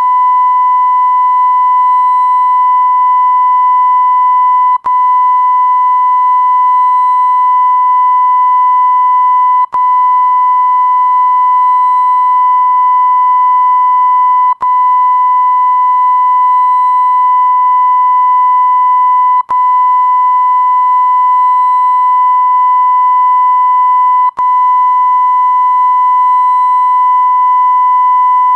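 Electronic beep sound effect: one steady 1 kHz tone held on without a break in pitch. It drops out for a split second with a faint click about every five seconds, five times, then carries straight on.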